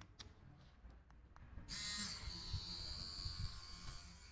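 Pen-style tattoo machine switched on about one and a half seconds in, then running with a steady high buzz, freshly fitted with a fine 03 liner needle. A few faint clicks come before it starts.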